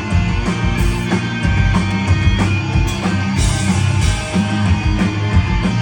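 A live pop-punk band playing loudly at full volume, with drums, bass and electric guitars, just after the song has kicked in.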